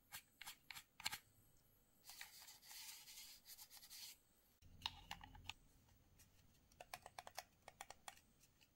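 Faint handling of an HP 240 Bluetooth mouse: a few sharp plastic clicks, then a cloth rubbing over the mouse's plastic underside for about two seconds. Near the end comes a quick run of small clicks as the scroll wheel is turned through its notches.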